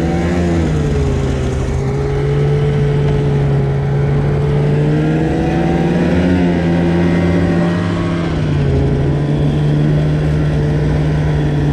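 Polaris snowmobile engine running under way through powder snow, its pitch stepping up about two seconds in, dropping back around eight seconds in, then climbing again as the throttle changes.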